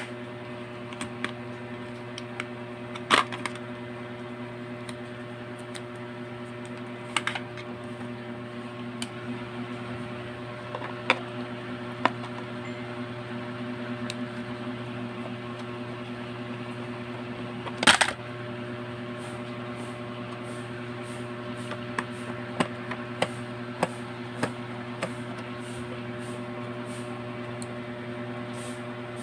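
Scattered plastic clicks and taps from handling an analog multimeter's case and working a screwdriver on its back battery cover, the sharpest about 3 seconds in and about two-thirds of the way through, over a steady low hum.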